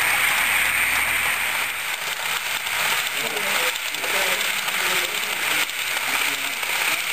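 Model train coaches rolling along the track: a steady rushing rattle of small metal wheels on rail. Faint voices murmur underneath.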